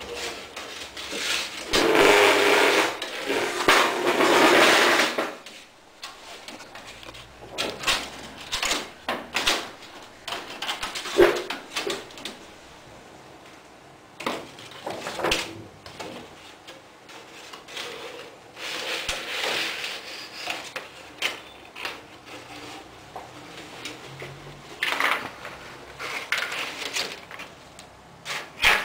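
Thin PVC drop-ceiling tiles being flexed and pushed up through a ceiling grid: rustling of the bent plastic sheets, loudest for about four seconds near the start and again briefly later, with scattered clicks and knocks as the tiles tap against the grid rails.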